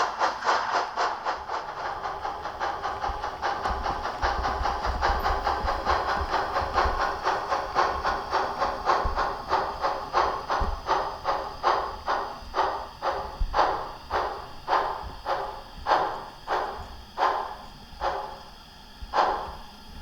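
Steam-locomotive chuffing from the mfx+ sound decoder of a Märklin 66 002 H0 model steam locomotive, played through its small onboard loudspeaker. The chuffs start rapid and slow steadily to about one a second as the model slows down.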